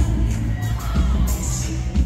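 Live band music from a concert hall, with a woman singing over a heavy bass line and cymbals, heard from among the audience.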